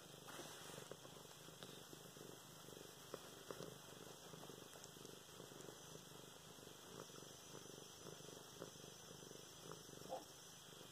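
A domestic cat purring softly and steadily while its chin is scratched.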